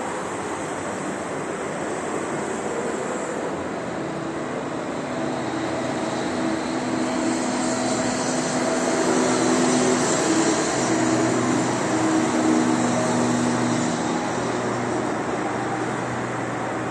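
Steady rushing noise with a low engine-like drone that swells over several seconds and then eases off, as of a vehicle passing.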